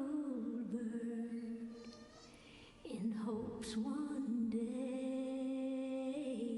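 Slow ballad with a woman's voice holding long sung notes; the first note fades out about two seconds in and the next one begins about three seconds in and is held to the end.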